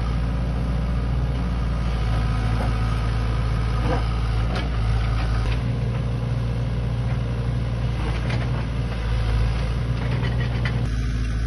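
Sany excavator's diesel engine running steadily at an even low pitch, with a few faint knocks.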